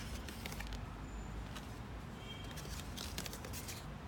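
Faint handling of unboxing items: a few light clicks and rustles over a steady low room hum.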